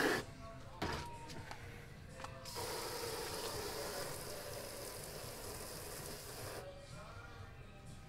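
Water spraying into a tub of car-shampoo solution, whipping it into suds: a steady hiss that starts a couple of seconds in and cuts off sharply shortly before the end.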